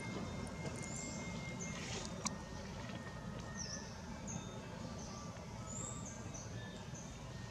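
Outdoor woodland ambience: a steady low rumble under frequent short, high bird chirps, with one sharp click a little over two seconds in.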